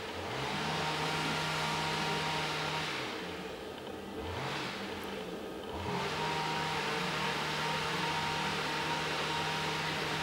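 An engine revving up and then running steadily. It drops away about three seconds in and revs up again twice before settling back to a steady run.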